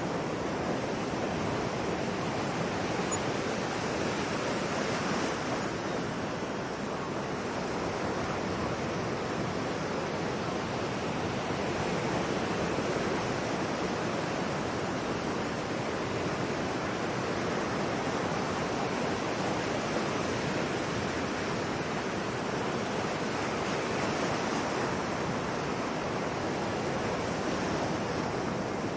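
Ocean surf washing in a continuous, even rush, rising and falling gently in loudness, with no gull calls.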